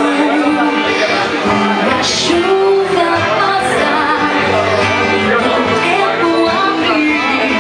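Live acoustic band performance: a woman singing a melody into a microphone over two acoustic guitars, heard through a PA in a room.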